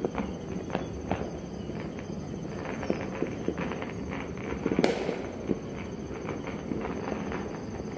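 Many distant firecrackers and fireworks popping at once: a continuous crackle with scattered sharper bangs, the loudest about five seconds in.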